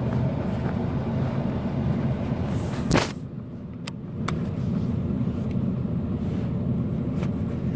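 Steady low rumble of vehicle and highway traffic noise. About three seconds in there is a single sharp thump, then a second or so of quieter sound with two light clicks before the rumble comes back.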